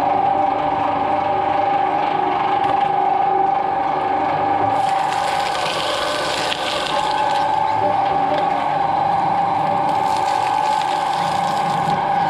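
Twin-shaft shredder running with a steady whine from its motor and gearbox. From about five seconds in, and again near the end, coconut shell and husk are torn apart between the rotating blades, adding a rough grinding noise over the whine.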